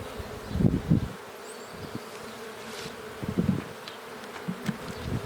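Honeybees of a queenless colony buzzing in a steady hum over the open hive, with a few soft bumps from frames being handled about a second in and again near three and a half seconds in.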